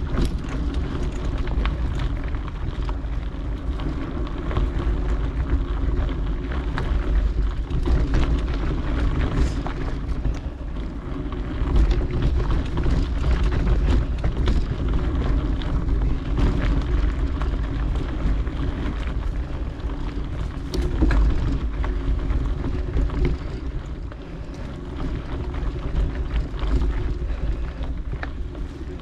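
Wind buffeting an action camera's microphone during a mountain bike ride on a dirt singletrack, a steady low rumble with frequent small clicks and rattles from the bike over rough ground.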